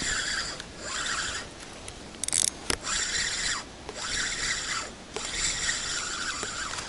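Spinning reel being cranked in about five short spells of whirring with brief pauses between them, the stop-and-go retrieve used to work a jig along the bottom. A couple of sharp clicks sound about two and a half seconds in.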